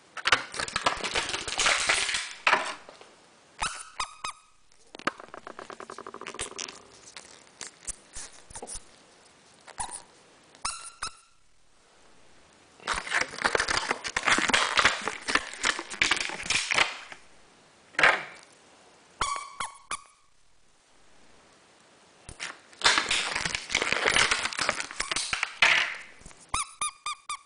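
Thin plastic packets crinkling as they are torn open and handled, in three long bursts, with several short high squeaks of plastic rubbing against plastic.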